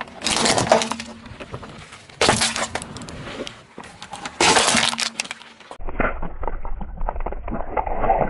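A car tyre rolling over and crushing plastic and metal objects: three loud, sudden cracking crunches about two seconds apart. Then a duller stretch of low rumble with many small crackles as the tyre rolls onto a row of plastic toys.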